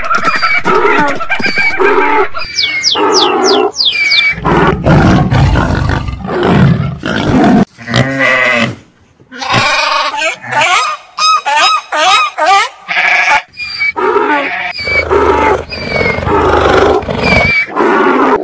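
A rapid series of different animal calls, one after another, each lasting a second or two, with a short lull about halfway through.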